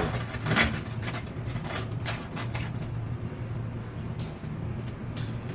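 Plastic PPR water pipes and elbow fittings being handled and pressed into place in a chiselled wall: a few light knocks and clicks, clustered about half a second in and around two seconds in, over a steady low hum.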